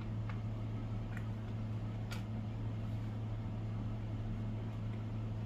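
Steady low hum with a few faint clicks on top of it.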